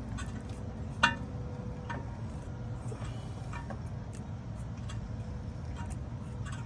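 Metal clinks and taps of hand tools and brake parts during brake pad work: one sharp, ringing clink about a second in, then several lighter taps, over a steady low rumble.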